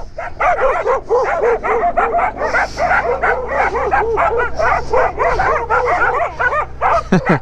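Several dogs barking and yipping close by, in quick, high-pitched, overlapping calls, several a second.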